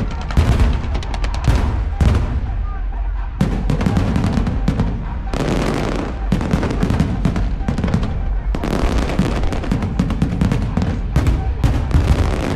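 Fireworks display: a rapid, dense run of bangs and crackling, with a short lull about two seconds in.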